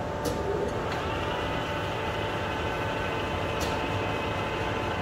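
Metal lathe turning slowly in low gear, a steady hum of its motor and gearing, while it winds a long steel rod around an old tailshaft into a spring. A few sharp ticks sound over the hum.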